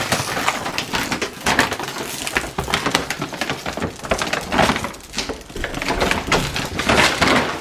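A big bag of dry dog food being handled, a dense run of crinkling and rattling kibble.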